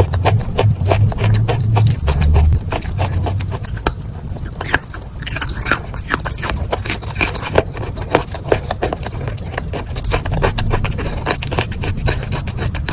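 Close-up crunching and chewing of wet chalk: a dense run of sharp crackles and clicks, with a low rumble underneath that is strongest in the first two or three seconds.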